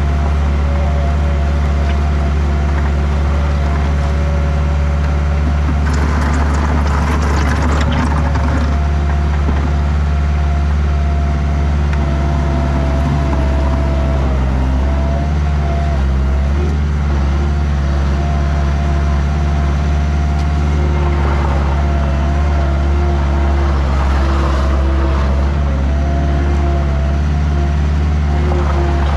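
Heavy construction machinery engine running steadily and loudly, with bursts of rattling and scraping about six seconds in and again around twenty-two to twenty-five seconds.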